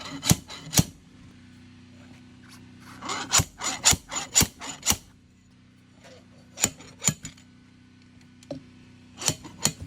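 Sharp clicks and snaps with rubbing in between, in short clusters, as the rubber tire is worked and forced onto the Onewheel GT hub by hand, over a steady low hum.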